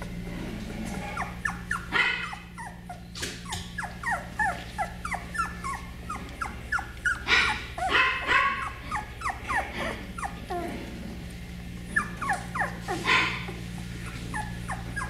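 Beagle puppies crying: many short, high, downward-sliding whimpers and yips, several a second, with louder cries about two, eight and thirteen seconds in. A steady low hum runs underneath.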